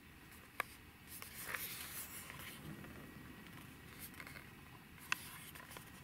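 Faint handling noise from a plastic earbud charging case turned over in the fingers: soft rubbing and rustling, with two small sharp clicks, one just over half a second in and another about five seconds in.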